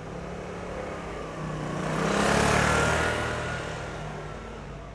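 A motor vehicle drives past. Its engine and tyre noise swell to a peak about halfway through, then fade away.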